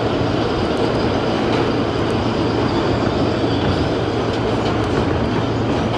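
New York City Subway A express train running on the track: a loud, steady rumble of wheels and motors, with a few faint clicks.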